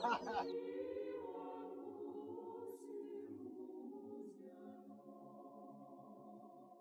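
Choir singing a long held chord that slowly fades away.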